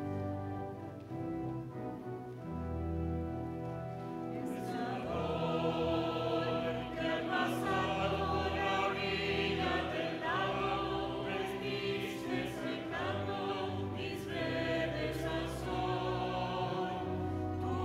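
Liturgical choral music: sustained instrumental notes, then a choir comes in about four and a half seconds in and sings over the accompaniment.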